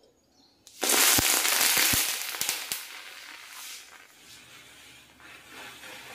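Homemade potassium chlorate mixture igniting and burning in a small metal bowl: a sudden loud fizzing hiss with crackling and several sharp pops, which dies down after about two seconds to a faint sizzle.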